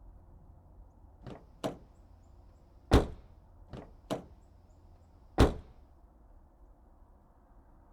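Six sharp impact sounds in an uneven pattern, the two loudest about 3 and 5.5 seconds in, over a faint steady hiss.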